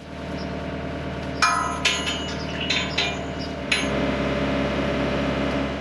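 An engine runs steadily, a little louder after a few seconds, while heavy steel parts clank and clink sharply several times, with a short metallic ring after each strike.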